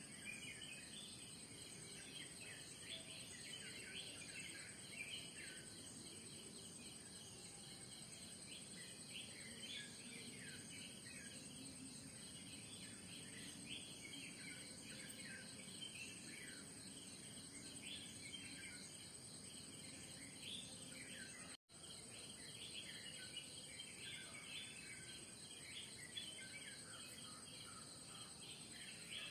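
Faint dawn chorus of many small birds chirping and twittering over a steady high-pitched drone of insects. All sound cuts out for an instant about three quarters of the way through.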